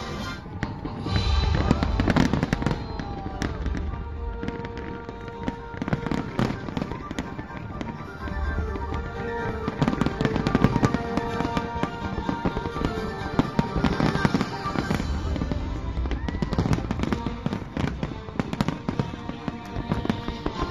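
Fireworks display going off: many sharp bangs overlapping in rapid succession, with music playing underneath.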